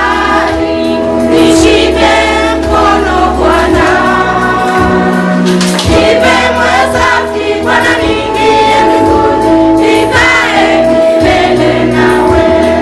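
Gospel music: a choir singing over instruments with a steady bass line.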